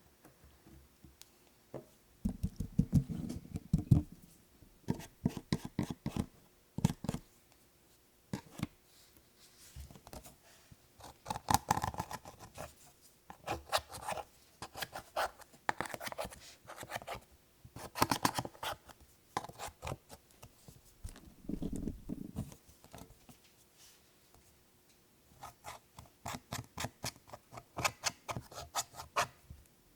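Hands squishing, folding and stretching slime: bursts of sticky clicking and crackling, with short pauses between them.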